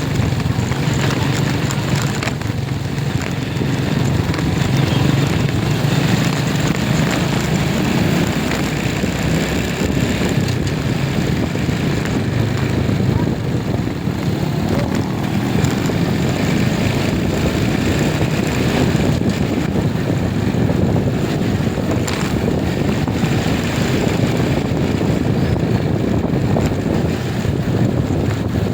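Steady vehicle engine and road noise, as heard while riding along a road.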